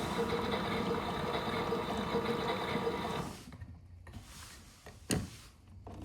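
Miele Novotronic W377 washing machine in its rinse cycle: motor and drum running steadily, then stopping about three seconds in. A single sharp click comes about two seconds later, and the machine starts running again right at the end.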